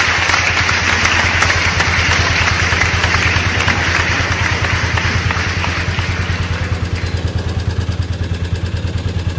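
Small fishing boat's engine running steadily with a fast, even beat, under a rushing hiss that eases about seven seconds in.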